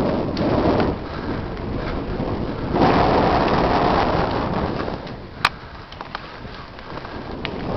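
Wind buffeting a helmet-mounted camera's microphone and tyres rumbling over a dry dirt trail as a mountain bike descends, surging louder about a third of the way in, then easing off. A few sharp clicks and rattles from the bike come through in the quieter second half.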